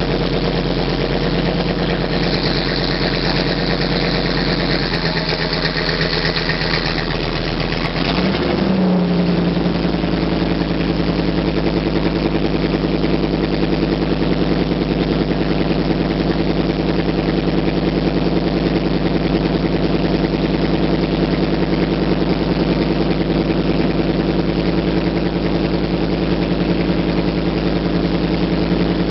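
1992 GMC TopKick medium-duty truck's engine running steadily, then about eight seconds in revving up and holding a higher steady speed while the hydraulics raise the dump body.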